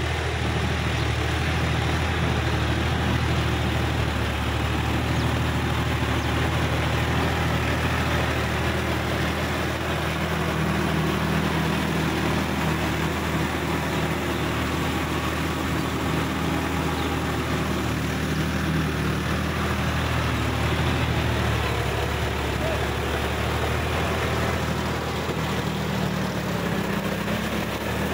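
Sonalika DI 50 tractor's diesel engine running steadily under load, driving a rotavator that churns through wet paddy mud.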